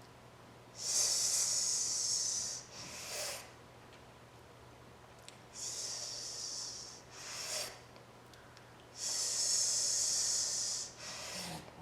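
A person hissing out through the teeth for about two seconds, then sucking air sharply back in, three times over: the qigong healing sound for the lungs.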